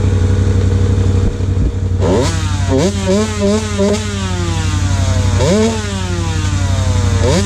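Steady low engine drone, and from about two seconds in a small dirt bike engine revved over and over, each rev rising quickly and falling back.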